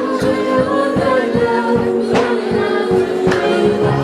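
Gospel music: a choir singing held notes over a steady drum beat.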